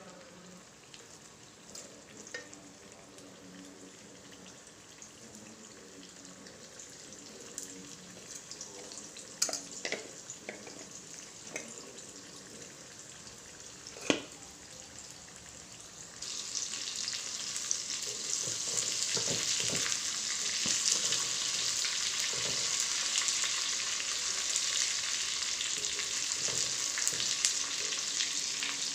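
Marinated chicken pieces deep-frying in hot oil in a kadai. The sizzle is soft at first, broken by a few clicks and one sharp knock about halfway through, then grows suddenly much louder and stays loud.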